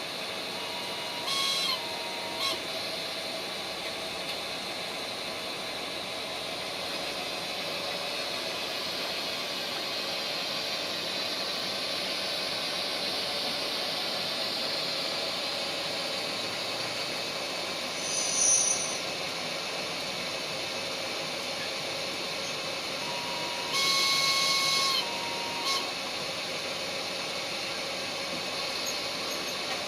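Sound decoder of a Minitrix N-scale 'Crocodile' electric locomotive model playing a steady running hiss. A short two-note horn, stepping up and back down, sounds twice: once near the start and once about three-quarters of the way through. A brief high chirp comes in between.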